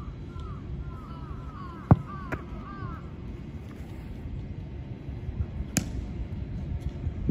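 A football being caught by goalkeepers in training gives a sharp slap about two seconds in, the loudest sound, and another near six seconds. A bird calls a quick run of falling chirps over the first three seconds, over a low steady outdoor rumble.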